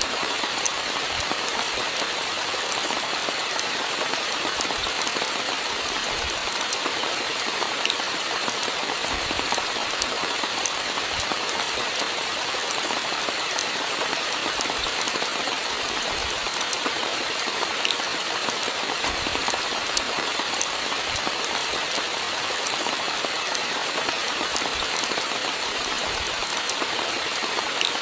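Steady rainfall: an even hiss of rain with many sharp drop ticks, and now and then a dull low thud of heavier drops.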